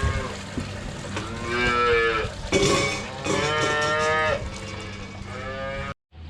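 Cattle mooing: three long moos, the third shorter, over a steady low hum. The sound cuts off suddenly near the end.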